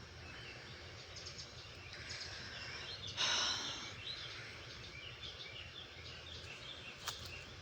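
Evening chorus of birds: many short chirps and calls overlapping, with a steady low background hum and a brief louder rush of noise about three seconds in.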